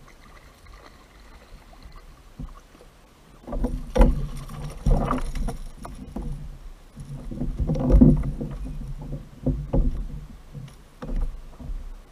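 Knocks, thumps and splashing on a plastic fishing kayak as a small fish is landed and handled, in irregular bursts from about three and a half seconds in until near the end.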